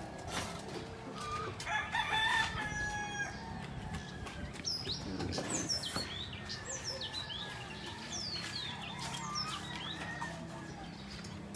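Birds calling: a longer pitched call about two seconds in, then a run of short, quick, falling chirps through the middle.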